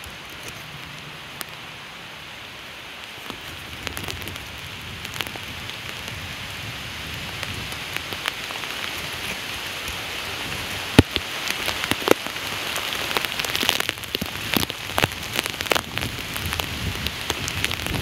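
Rain falling, with many sharp ticks of drops landing close by; it grows louder and heavier through the second half.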